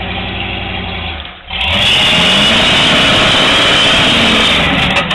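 A rock-crawling Jeep's engine running at low revs, then about a second and a half in revving up hard and staying loud as the tyres spin in loose dirt, climbing a rock ledge.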